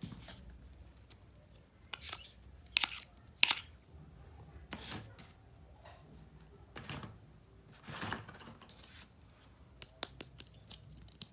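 Handling of a miniature plastic toy kitchen set and its packaging: short tearing and rustling rasps every second or so, the loudest about three seconds in, with a quick run of small clicks near the end.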